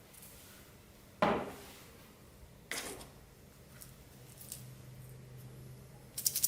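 Hands working clear slime: a sharp squelch about a second in that dies away, a smaller one a little later, and a quick run of small clicks near the end.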